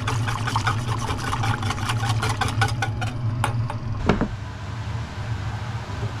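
Wire whisk clicking and scraping against a metal saucepan while a thick cream sauce is whisked, about four or five strokes a second, over a steady low hum. The whisking stops about three seconds in, followed by a single knock about a second later.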